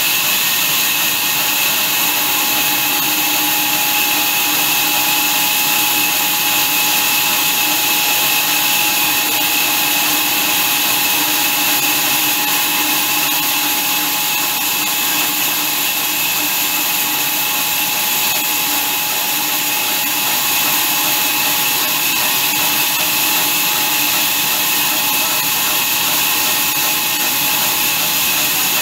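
Horizontal band sawmill running and sawing lengthwise through a large log as the carriage feeds it into the blade: a steady, loud mechanical whine over dense noise.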